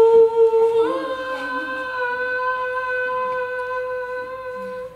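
A voice holding one long sung note, stepping up slightly in pitch about a second in, then held steady until it stops just before the end.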